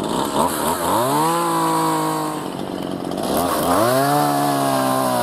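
Two-stroke chainsaw cutting through a fallen log. The engine's pitch dips and climbs back up twice, holding a steady high note in between.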